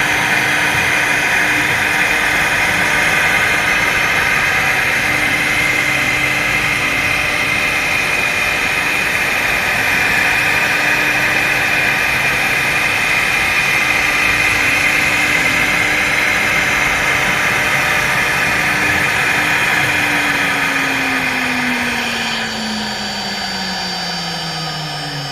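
CNC router running with a steady whine and hum. Near the end, a low tone slides steadily down in pitch and the level eases, as the machine winds down.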